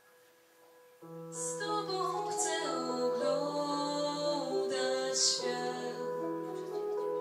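Live group singing with instrumental accompaniment: a soft held chord, then about a second in the voices and a low bass note come in together and the song carries on.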